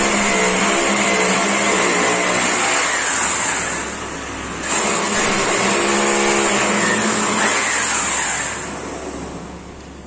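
Corded electric rotary hammer drill boring into a wall, run in two spells: the first for about three and a half seconds, then after a brief dip a second run, which ends near the end with the motor winding down in falling pitch.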